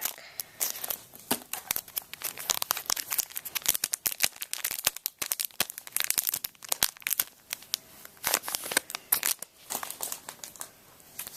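Trading card pack wrapper crinkling and tearing as it is opened by hand, a dense run of crackles with small pauses.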